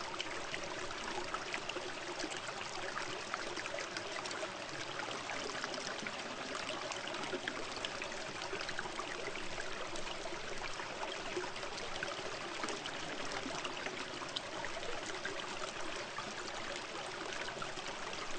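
Steady trickling water, a continuous splashing hiss dotted with many small pops.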